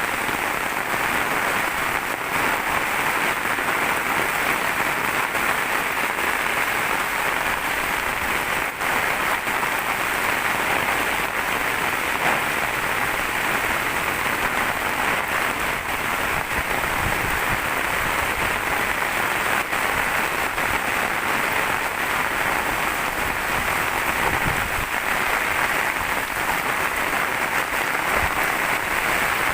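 Steady heavy rain, a dense, even hiss.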